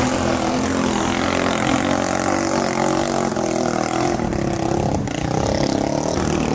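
Boat engine running steadily, with an even, continuous drone.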